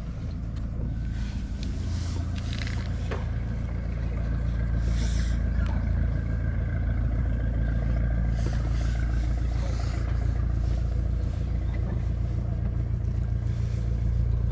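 A fishing boat's engine running with a steady low rumble, growing louder over the first few seconds as the boat comes in, then holding steady.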